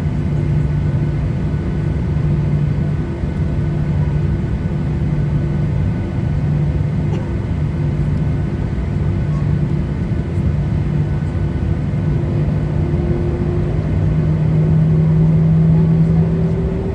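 Boeing 737-800's CFM56-7B jet engines idling, heard from inside the passenger cabin as a steady low hum with a droning tone. The tone rises slightly in pitch and grows louder near the end, as power comes up for taxi.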